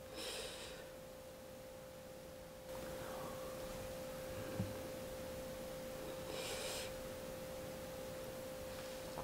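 A steady faint tone at one pitch runs throughout. Over it come two short rustles, about half a second in and again about six and a half seconds in, as leafy greens are handled and laid on rice by hand, with a soft thump between them.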